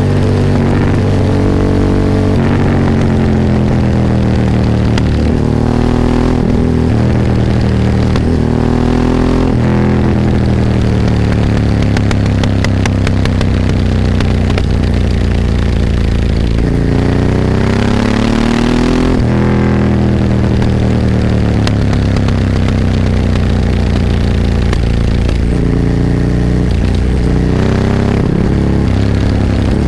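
Ducati 998's 90-degree V-twin engine, heard onboard while riding, loud throughout. It revs up repeatedly, its pitch climbing and then dropping sharply at each gear change, with one long climb a little past halfway followed by a gradual fall in pitch as it slows.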